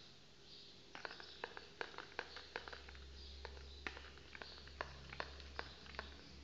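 Metal spoon stirring thick yogurt in a plastic bowl: a run of light, irregular clicks and scrapes, a few a second, as the spoon knocks against the bowl.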